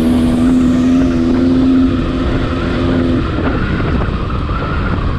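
Dirt bike engine running at a steady pitch under throttle, its note fading after about three seconds, with heavy wind rumble and tyres crunching over gravel throughout.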